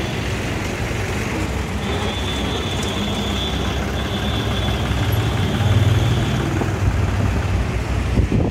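Heavy diesel truck engine idling with a steady low rumble, a little louder for a moment about six seconds in. A thin high steady whine sounds over it for a few seconds in the middle.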